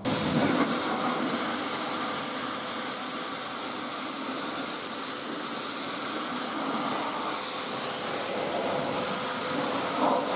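Air blower (car dryer) blowing through a flexible hose onto a wet tyre to dry it: it comes on at once and runs as a steady rushing hiss with a faint high whine from the motor.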